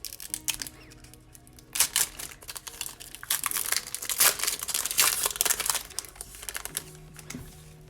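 Foil booster-pack wrapper crinkling as it is handled and torn open, with a short burst about two seconds in and a longer, louder stretch from about three to six seconds in. Soft background music plays underneath.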